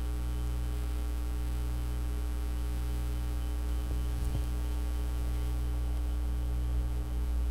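Steady electrical mains hum, with a faint click or two about four seconds in.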